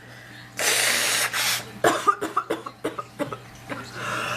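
A woman with a sick, sore throat in a coughing fit: a second-long rough cough, then a quick run of about ten short coughs, and a noisy breath in near the end.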